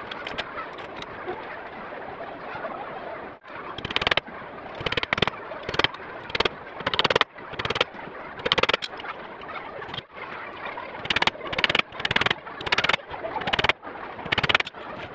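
Hammer blows on wood, in short runs of two or three strikes with pauses between, nailing together a small wooden frame, over a steady background hiss.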